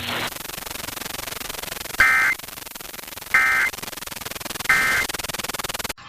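Emergency Alert System end-of-message code: three short identical bursts of digital data tones, about a second and a third apart, over steady radio receiver hiss.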